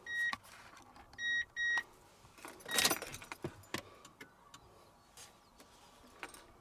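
Two pairs of short, high electronic beeps, the second pair a little over a second after the first, followed by a brief rustle and a few light clicks.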